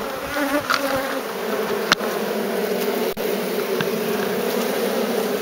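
Honeybee colony buzzing steadily inside an open top bar hive, heard close up among the bees. Two sharp clicks come through it, about two seconds in and again a second later.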